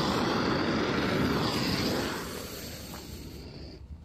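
Firecracker fuse burning with a loud, steady, crackling hiss that fades away over the last two seconds as it burns down.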